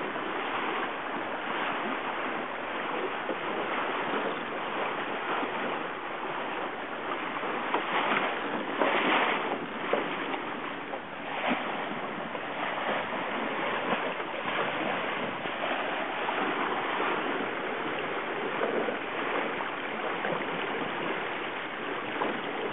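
Steady rush and splash of water past the hull of an 18ft skiff sailing at speed, mixed with wind noise; the rush swells a few times, most strongly a little before halfway.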